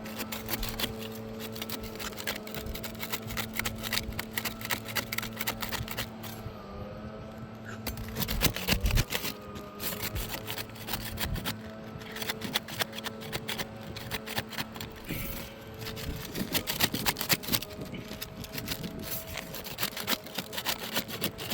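Asphalt shingles being pried up from their sealant strip by hand: a dense run of small crackling and scraping sounds as the seal tears loose, with a louder cluster of knocks about eight to nine seconds in. A steady low hum sits underneath and fades out about two-thirds of the way through.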